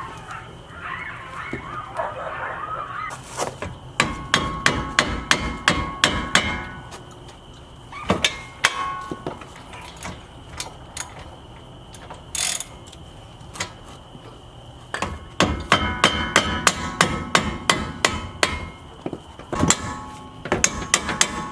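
Hammer striking metal in three quick runs of blows, about four or five a second, with a few single knocks between, each hit ringing.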